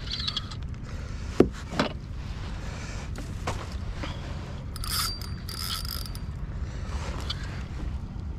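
Spinning reel being cranked to bring in a hooked fish, its gears whirring, with two sharp clicks about a second and a half in and a brief high buzz about five seconds in.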